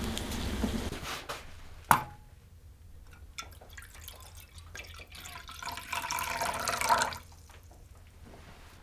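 Frying hiss fades out in the first second. About two seconds in there is a single sharp metallic clink, then small ticks and a stretch of liquid pouring or splashing that stops abruptly about seven seconds in.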